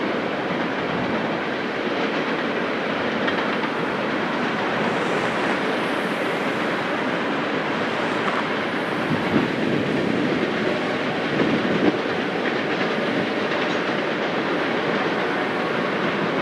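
Freight cars of a long train rolling steadily over a steel trestle bridge: a continuous rumble and clatter of wheels on rail, with a couple of sharper knocks around nine and twelve seconds in.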